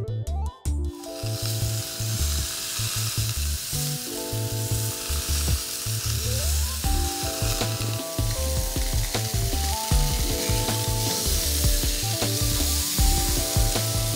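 Beef burger patties sizzling on the grate of a wood-fired grill, the sizzle starting about a second in. Background music with a steady beat plays throughout.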